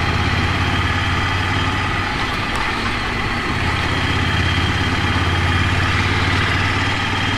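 Ducati Monster 797's air-cooled L-twin engine running steadily at low revs.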